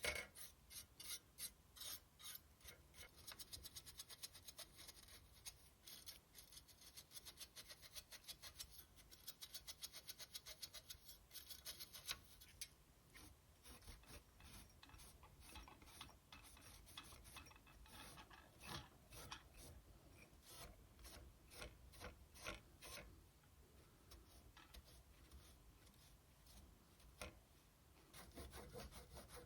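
Quick back-and-forth scrubbing strokes on a PS4 Slim heatsink as it is cleaned, coming in runs of several strokes a second with short pauses between them.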